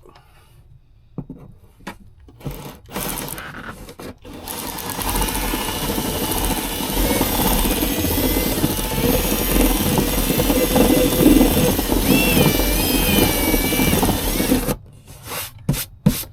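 Power drill running for about ten seconds, its bit worked around in a tight hole to widen it for cables, after a few knocks as it is set in place.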